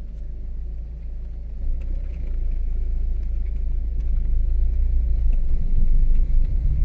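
Low road rumble heard inside a car crawling over a potholed, broken asphalt road, growing louder toward the end.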